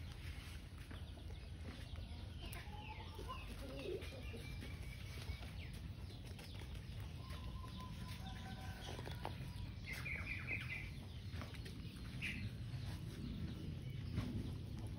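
Faint, scattered short animal chirps and clucks, with a quick run of high notes about ten seconds in, over a steady low background rumble.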